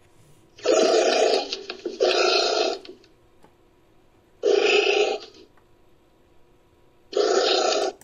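Anteater calls cut into a creature sound effect: four short, rough, breathy bursts without a clear pitch, each starting and stopping abruptly. The first two come back to back about a second in, one falls in the middle and one comes near the end.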